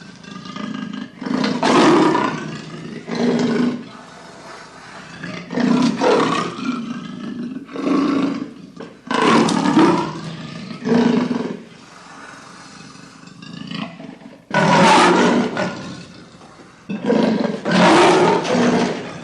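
A large animal roaring: a series of loud calls, each about a second long, with pauses between them.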